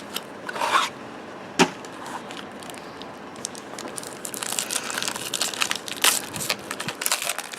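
A sealed pack of basketball trading cards being torn open and handled: the wrapper crinkling and tearing, with a sharp click early on and a busy run of small crackles through the second half.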